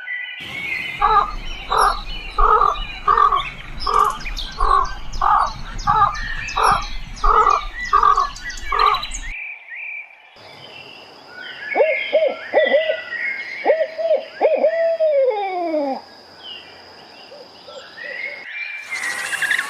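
Birds calling. A steady series of about fourteen short, evenly repeated calls, roughly one every half-second, with high chirping over them. After a cut comes a different set of calls, some sliding down in pitch, again among chirping.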